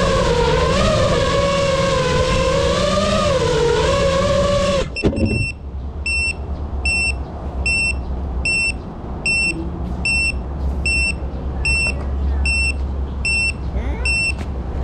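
A 5-inch FPV quadcopter's motors whine, their pitch wavering up and down, then cut off about five seconds in as it sets down. After that its onboard buzzer beeps at a steady high pitch, roughly twice a second.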